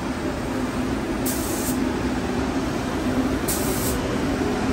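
Gravity-feed paint spray gun spraying clear coat onto a sanded headlight lens: a steady rushing hiss over a constant hum, with two brief sharper hisses about two seconds apart.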